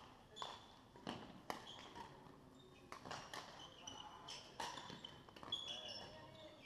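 Badminton rackets striking shuttlecocks, a run of sharp cracks every second or so, with sports shoes squeaking briefly on the hall floor between them.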